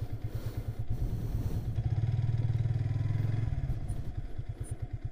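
Motorcycle engine running at low speed with an even pulsing beat. The throttle opens about two seconds in and eases off about a second and a half later, dropping back to lighter, steady pulses.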